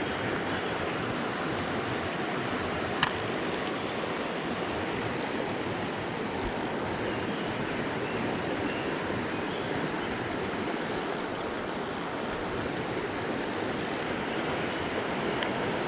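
Mountain stream water rushing steadily over rocks, with a single sharp click about three seconds in.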